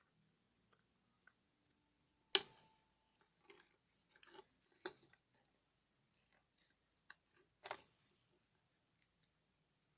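Faint, scattered small clicks and taps from handling an eyeshadow case while adding more eyeshadow powder to the slime mixture, the sharpest click about two seconds in.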